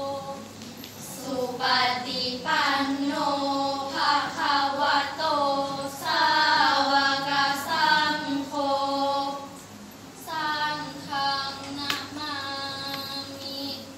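Five girls chanting together in the Thai sarabhanya melody, a sung Buddhist chant in praise of the Triple Gem. It goes in drawn-out phrases, with short breaths between them about a second in and again around ten seconds in.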